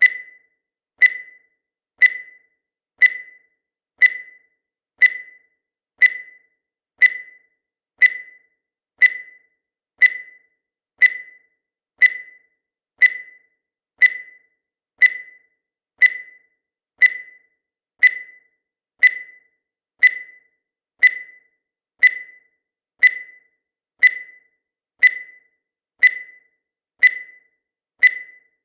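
Countdown timer sound effect: a short, high beep once every second, each dying away quickly, at an even pace and level.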